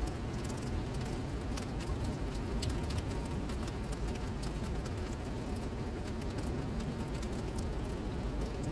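Rain falling into a puddle on a paved surface: a steady patter of many small, separate drop splashes over a constant low rumble.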